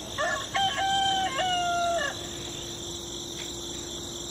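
A rooster crowing once, a call of about two seconds that falls away at the end, over a steady high-pitched hum.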